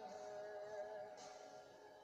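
Faint background music with long held notes.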